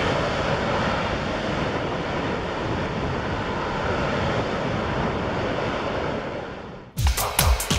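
Harrier jump jet's Pegasus turbofan in hover, a steady jet roar mixed with heavy wind buffeting the microphone. It fades out about seven seconds in, and electronic dance music with a heavy beat takes over.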